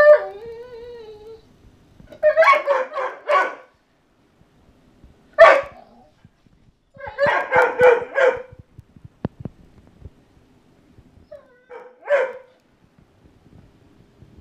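Dog play-barking over a stuffed toy: a falling whine at the start, then quick runs of several sharp barks with single barks between them.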